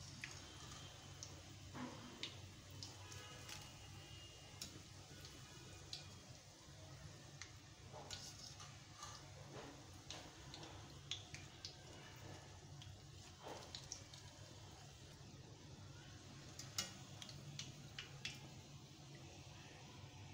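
Hot oil sizzling faintly as breaded potato-and-chicken bites deep-fry in a steel wok, with scattered sharp pops and light clicks of a wire mesh skimmer against the pan. The bites are turning golden and nearly done. A low steady hum sits underneath.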